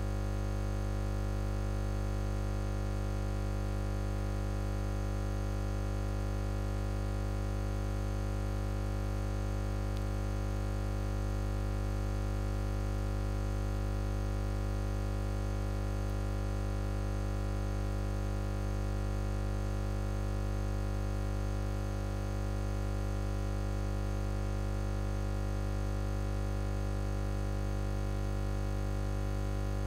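Steady, unchanging electrical hum with a stack of many overtones, strongest in the low bass, from the public-address system.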